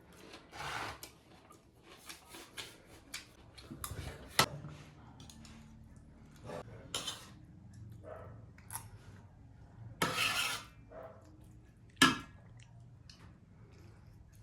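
Clinks and scrapes of dishes and utensils during a meal, with scattered eating noises. There are a few sharper clicks and a short noisy rustle partway through.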